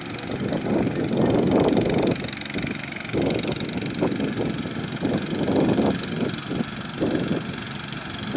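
Walk-behind power tiller's small engine running while its rotary blades work a flooded rice paddy. The sound swells and eases irregularly, about once a second.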